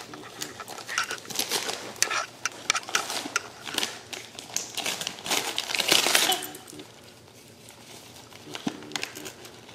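Gift-wrapping paper crinkling and rustling in irregular bursts as a wire fox terrier noses, bites and tugs at a wrapped present. It is busiest up to about six seconds in, then goes quieter for the last few seconds.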